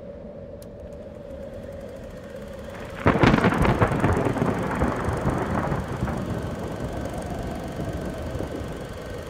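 A thunderclap about three seconds in, a sharp crack that rolls away into rumbling over several seconds, over a steady low hum.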